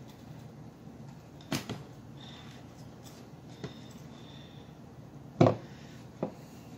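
Kitchen utensils and containers being handled: four knocks, the loudest about five and a half seconds in, with a couple of faint short squeaks between them.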